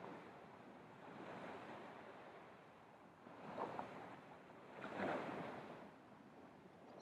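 Small waves breaking and washing up a beach, the surf swelling about a second in, again around three and a half seconds, and loudest near five seconds.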